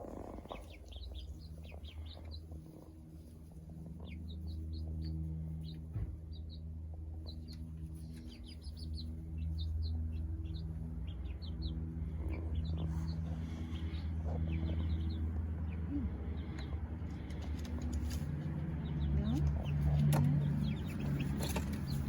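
Young chickens peeping: many short, high chirps in quick scattered runs, thinning out in the second half, over a steady low hum.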